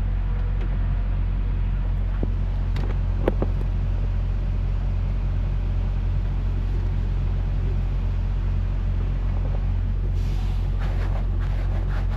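Steady low drone of a semi-truck's diesel engine and road noise, heard inside the cab while driving, with a few faint clicks about three seconds in.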